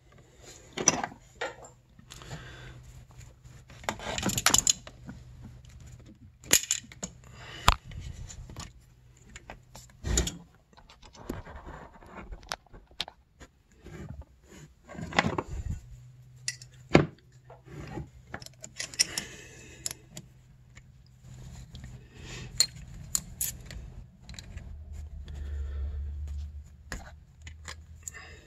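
Irregular metallic clicks and clinks of hand tools on a snowmobile's power valve cable adjuster, as a wrench works the adjuster and its jam nut.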